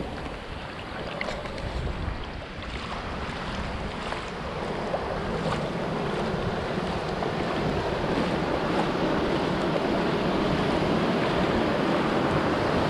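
Shallow surf washing in over sand, with wind buffeting the microphone; the wash grows louder about halfway through.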